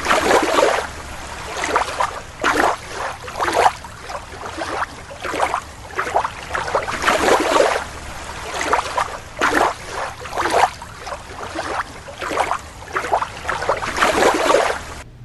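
Water splashing and sloshing in an aquarium tank in repeated irregular bursts, as a toy seal is swished through it.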